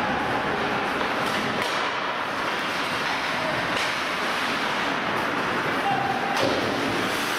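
Ice hockey play in a rink: a steady noise of the game with several sharp knocks of sticks, puck and boards.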